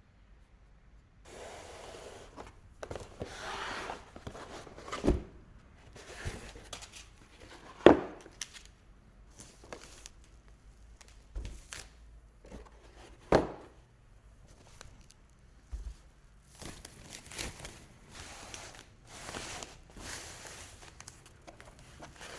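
Unboxing noises: packaging rustling and tearing in repeated short bursts, with a few sharp thuds as the box and its contents are handled, the loudest about eight seconds in.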